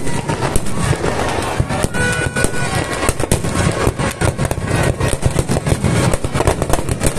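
Firecrackers packed inside burning Ravana effigies going off in a rapid, dense string of sharp bangs.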